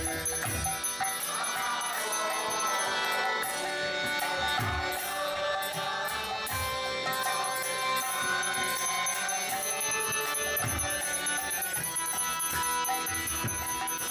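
Indian devotional music, kirtan-style, with steady held tones and metal percussion jingling throughout; a few low drum strokes sound now and then.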